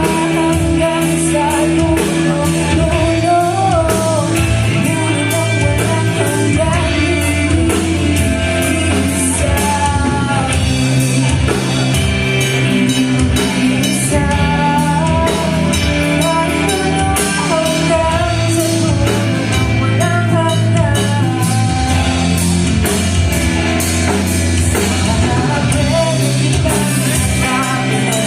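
A band playing a rock song live, with singing over guitar, bass and a drum kit.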